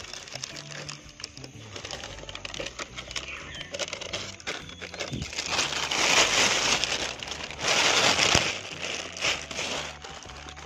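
Plastic bag rustling and crinkling as it is handled and pulled off the pot. The crinkling gets loudest in two stretches a little past the middle.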